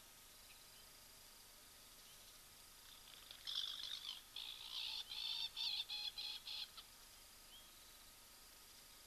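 A bird calling in a rapid chattering run of harsh, pulsed notes for about three seconds midway, over a faint steady chirring of insects.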